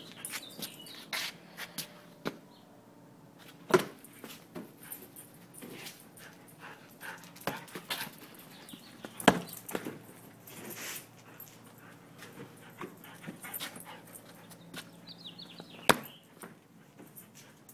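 Australian Shepherd dog making soft whines and breathing sounds, with a scatter of sharp clicks and knocks; the three loudest come about four, nine and sixteen seconds in.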